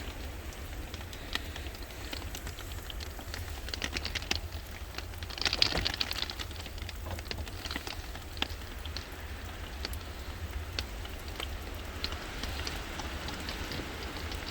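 Steady rain with scattered drops ticking and tapping irregularly on nearby surfaces, over a low wind rumble.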